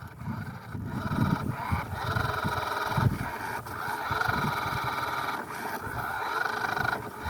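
Toy-grade RC car's electric motor whining steadily at full throttle as its wheels spin, struggling to climb out of sand. Irregular low rumbling thumps underneath.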